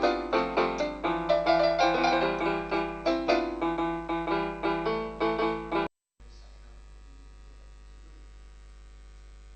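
Keyboard playing a run of short notes over a held low note, cutting off abruptly about six seconds in. After that only a faint steady hum remains.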